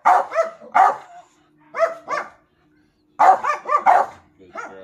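American bully barking repeatedly, in three quick bursts of short barks separated by brief pauses.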